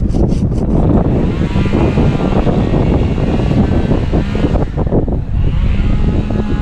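Wind buffeting a small action-camera microphone: a loud, rough, low rumble, with faint wavering tones in the middle of it.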